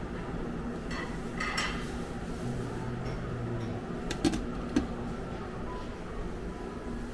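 Glass lid of a buffet serving dish clinking twice against the dish, about half a second apart, as it is handled, over a steady room hum.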